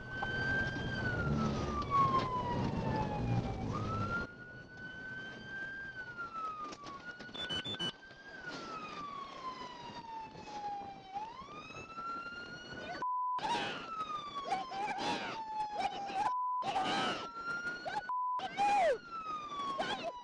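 Police car siren wailing, each cycle rising quickly and then falling slowly over a few seconds, over road rumble that drops away about four seconds in as the cruiser stops. In the second half the wail is broken by short dropouts and bursts of a steady tone.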